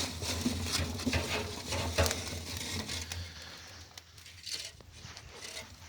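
Lit charcoal from a chimney starter being poured onto unlit charcoal in the firebox, with chunks clattering and crackling. The clatter is busiest for the first three seconds, then thins to scattered clicks.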